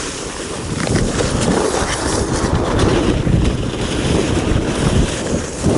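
Wind buffeting the microphone: a loud rushing noise that builds about a second in and dips briefly near the end.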